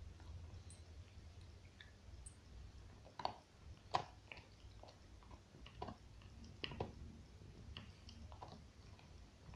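A dog gnawing on a bone: faint, irregular cracks and crunches of teeth on bone, the sharpest about three and four seconds in.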